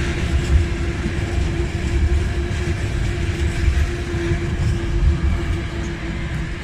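Freight train of tank wagons passing close by, with a steady low rumble of wheels on the rails and the steady note of the diesel locomotive as it comes past.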